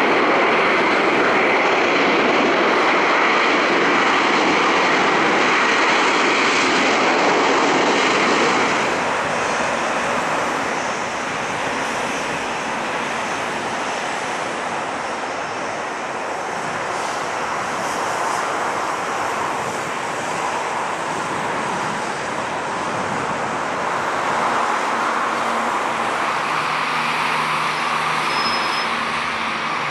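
Jet engines of a Boeing 737 airliner on the runway, loud for about the first nine seconds, then dropping to a lower, steady running as the plane slows and taxis.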